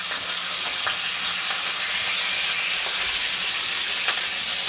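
Bacon strips sizzling steadily in a frying pan, with a faint low hum underneath.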